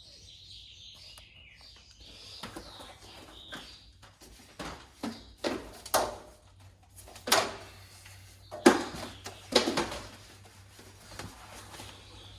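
A run of hard knocks and clunks with rattling, loudest in the middle few seconds, as a metal rolling tool cart and its hardware are handled to take off the casters. Faint birdsong chirps in the background.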